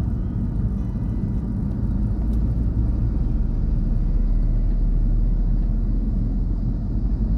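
Car road noise heard from inside the cabin at highway speed: a steady low rumble of tyres and engine, growing a little louder about two seconds in.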